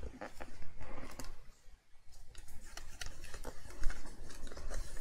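Hands handling and pressing down glued cardstock pockets: irregular paper rustles, crinkles and light taps on a cutting mat, with a brief lull about two seconds in.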